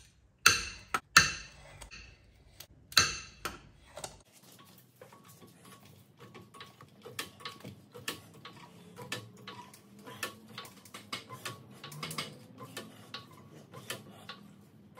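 A socket wrench on the wheel nuts gives three loud, sharp metallic clicks as the nuts are cracked loose. This is followed by a long run of faint, fairly regular ticks and clinks as the vehicle is jacked up.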